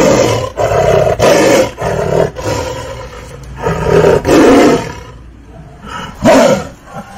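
Tiger roaring and snarling in a rapid series of short, loud bursts, about seven in the first five seconds, then one more near the end: an agitated, aggressive display.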